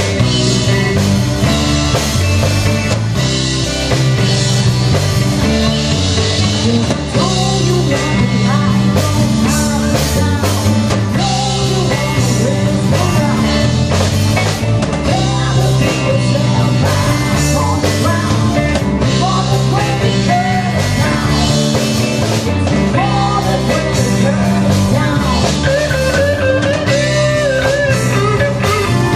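Live rock band playing: electric guitars, bass, keyboards and drum kit, with a woman singing at moments.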